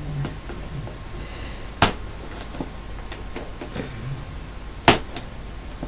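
Knife cutting through the tape on a cardboard camera box, with light scraping and small ticks and two sharp clicks about three seconds apart.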